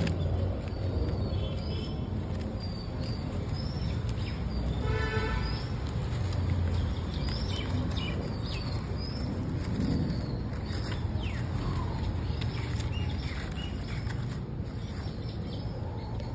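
Outdoor ambience: birds chirping over a steady low rumble, with one brief pitched call about five seconds in.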